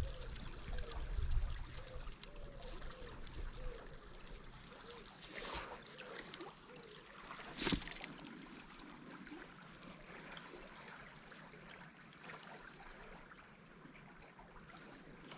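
Faint river water trickling and flowing, with a single sharp knock about eight seconds in.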